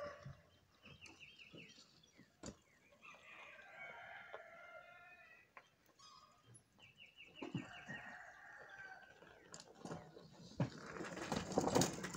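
A rooster crowing faintly a few times. Near the end a rising rush of noise as a Mongoose fat-tire bike rides up close over the dirt.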